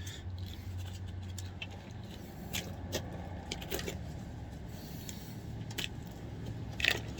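Scattered light clicks and scrapes of a plastic Nerf blaster being handled, over a steady low hum of passing traffic that fades after the first couple of seconds.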